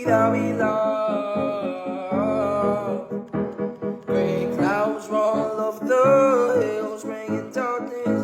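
A solo singer's voice holding long, bending notes over piano accompaniment: a vocal cover of a pop song.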